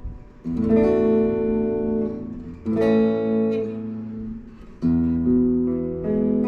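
Gretsch G2657T Streamliner Centerblock semi-hollow electric guitar, fitted with a roller bridge and locking tuners, strumming chords: three chords struck about two seconds apart, each left to ring and fade.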